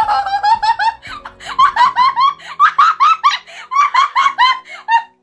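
A person laughing hard in a high-pitched, rapid string of "ha" bursts, about four or five a second, that cuts off abruptly near the end.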